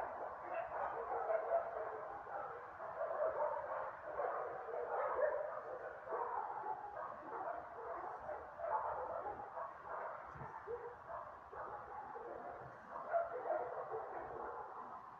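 Several dogs barking without let-up, their barks overlapping into a continuous din.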